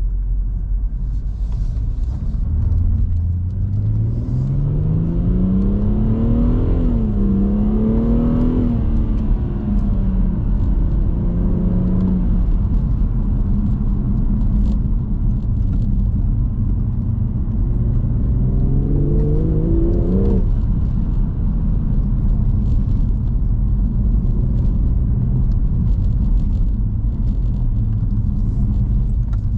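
BMW M240i's turbocharged 3.0-litre inline-six pulling hard under acceleration, its note rising steadily, dipping briefly at a gear change, rising again and then falling off. It climbs once more later before dropping away, over a constant low road rumble.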